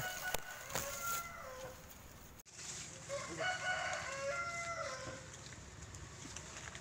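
A rooster crowing twice, each crow about two seconds long, the second starting about three seconds in.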